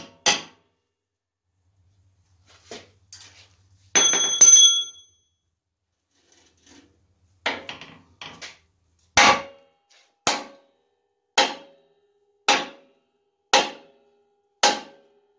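Hammer striking a bent, worn upper trailing arm bushing in the ear of a GM four-link rear axle housing to knock it out. A few scattered strikes and a ringing metallic clang about four seconds in, then a steady run of blows about one a second, each with a short ring.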